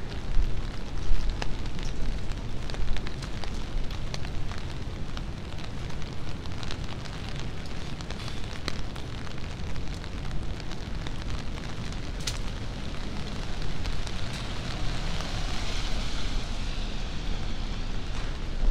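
Wet city street at night just after rain: a steady low rumble with scattered small ticks and drips, and a rushing swell about fifteen seconds in.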